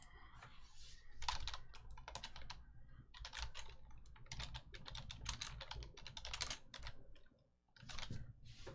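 Typing on a computer keyboard: quick, irregular runs of key clicks, with a short pause near the end.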